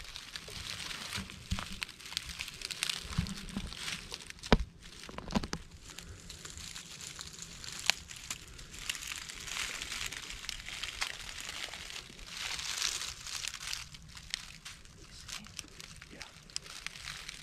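Footsteps crunching and rustling through dry fallen oak leaves, with a few sharp clicks, the loudest about four and a half seconds in.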